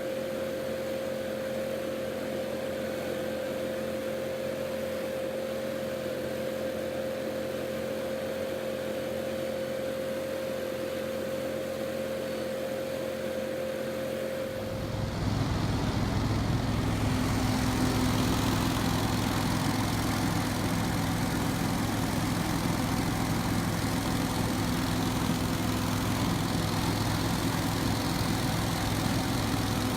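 Hurricane Z3 debris blower running steadily, its engine and fan giving a steady high tone over a rushing hum. About halfway through the sound becomes louder and deeper, with a heavier low rumble.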